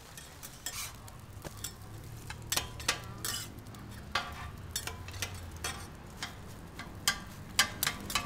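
Metal spatulas scraping and clacking on a hot flat-top griddle, chopping and lifting stacked batter egg pancakes, in irregular sharp strikes over a light frying sizzle.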